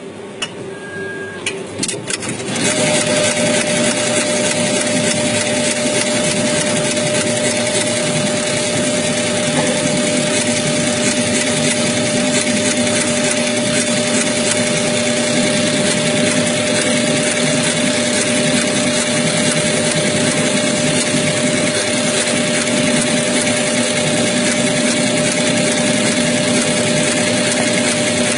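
ZSK computerised embroidery machine with a pearl-attaching device running: a fast, steady mechanical chatter of needle strokes over a steady hum. It turns loud and steady about two and a half seconds in, after a quieter start with a few clicks.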